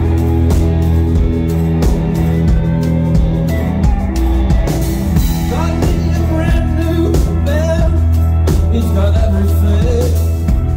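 Live rock band playing: electric guitars, including a Flying V-style guitar, over sustained low bass notes and steady drum hits, with a wavering melodic line joining about halfway through.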